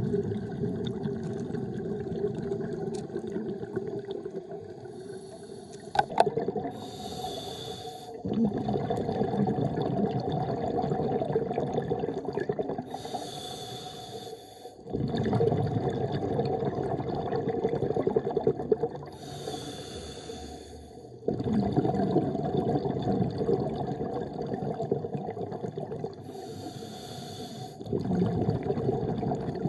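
Scuba diver breathing through a regulator underwater: four breaths, each a short hiss of inhaled air followed by several seconds of rumbling, bubbling exhaust. A sharp click about six seconds in.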